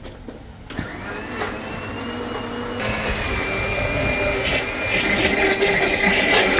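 Electric countertop blender motor starting up about a second in, its whine rising as it spins up, then running steadily and louder while blending a chocolate milkshake.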